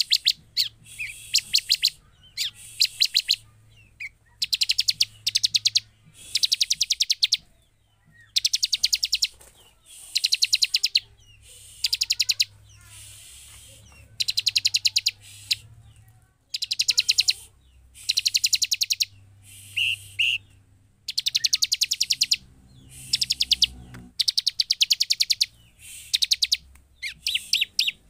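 Bar-winged prinia (ciblek) calling in rapid runs of sharp, high ticking notes. Each run lasts about a second and is repeated over and over with short pauses between.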